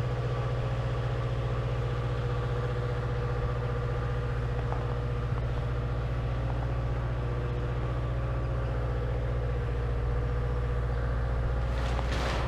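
An engine idling steadily with a deep, even hum. A short scuffing noise comes near the end.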